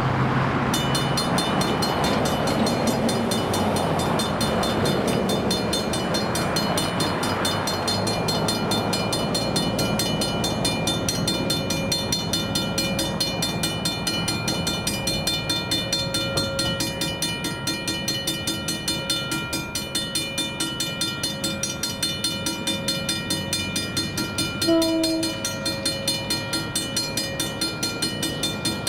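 Level crossing's mechanical bell starts ringing about a second in and keeps striking in a fast, even rhythm with a bright, lingering ring. A passing rumble fades over the first several seconds, and a short horn blast sounds near the end.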